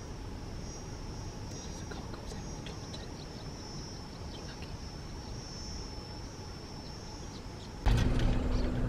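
Steady high insect buzz over a low outdoor rumble. About eight seconds in it cuts abruptly to a louder low rumble with a steady hum.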